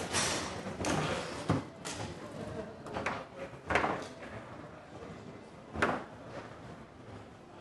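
Foosball game in play: sharp knocks of the ball against the table's figures and rods as it is passed and struck, with rods sliding and bumping. The loudest hits come about two, four and six seconds in.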